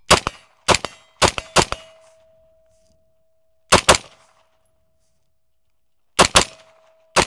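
Shots from an 18-inch 5.56 AR-15-pattern competition rifle (Cobalt Kinetics CK Pro) with a muzzle brake, fired in an uneven string with several close pairs, and a steel target ringing on after the hits. The adjustable gas block has just been turned down a full turn, and the rifle is still cycling.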